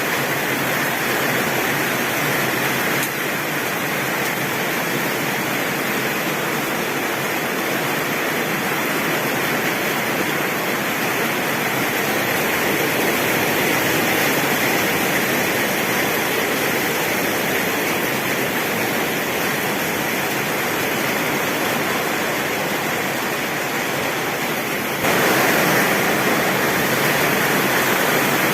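Heavy rain pouring on a tin roof: a dense, steady hiss of drops with no thunder heard. The rain steps abruptly louder about three seconds before the end.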